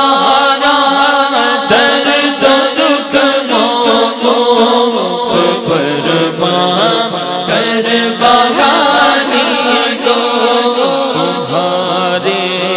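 Unaccompanied naat sung by a man into a microphone, his voice gliding through long ornamented phrases over a steady low drone that shifts lower about halfway through.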